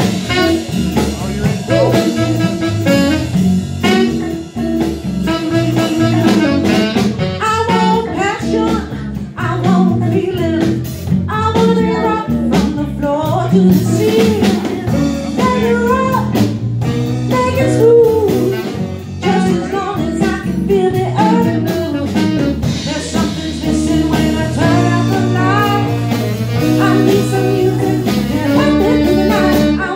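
Live blues band playing: drum kit, electric bass and electric guitar under a wavering saxophone lead line.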